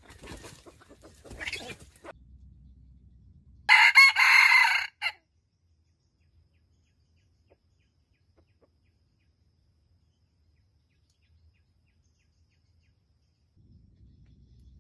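Soft bird calls at first, then about four seconds in a junglefowl rooster crows once: a loud, short crow of about a second and a half.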